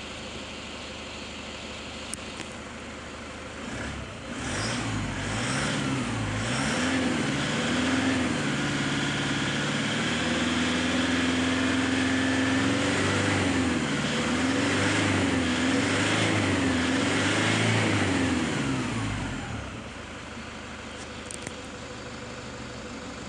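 Toyota Hilux 3.0-litre four-cylinder turbo diesel idling, heard from inside the cab. About four seconds in it is revved up and down several times, with a short steady hold at raised revs in the middle, then settles back to idle near the end.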